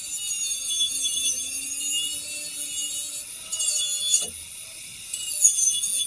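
Steady scratchy rubbing of a tool working on the spare wheel, as in sanding or scraping, with a short knock about four seconds in.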